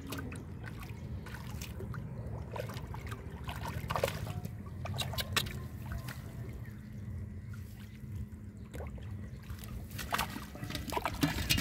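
Shallow muddy water sloshing and trickling as it is stirred by hand, with scattered small splashes.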